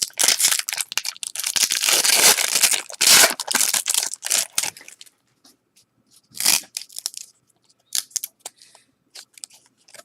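A trading card pack's wrapper is torn open and crinkled for about five seconds, followed by scattered light rustles and clicks.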